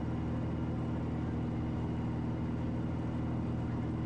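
Steady drone of a Piper Malibu's single piston engine and propeller in flight, heard inside the cockpit: an even, unchanging low hum.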